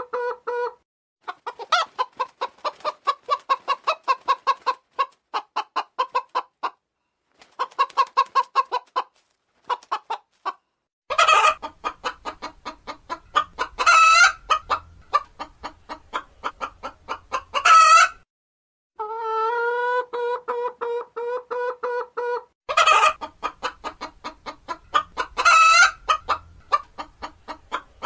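Hen clucking in rapid runs that build several times into a loud drawn-out squawk, with one long steady call about two-thirds of the way through, broken by a few short silences.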